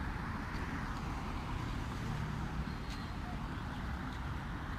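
Steady background noise of road traffic, with one faint click about three seconds in.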